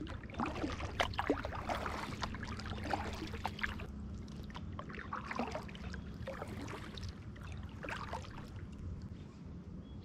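Kayak paddling: the paddle blades dip in and water drips and splashes off them in irregular, small splashes as the kayak glides over calm water.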